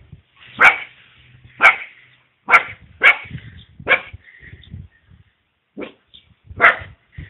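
Caucasian shepherd puppy, eight weeks old, barking: about seven short barks, roughly one a second, with a brief pause before the last two.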